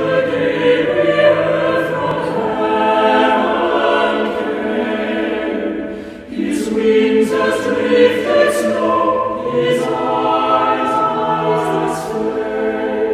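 A choir singing, in two phrases with a short break about six seconds in.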